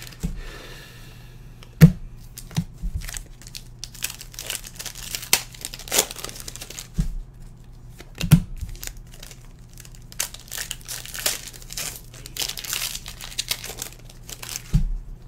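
Foil trading-card pack wrappers being torn open and crinkled while cards are handled, with a couple of sharper knocks about two and eight seconds in.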